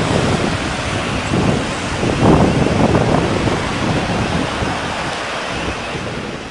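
Wind buffeting the microphone over the noise of cars driving on a road, with a louder gust about two seconds in. The sound fades down near the end.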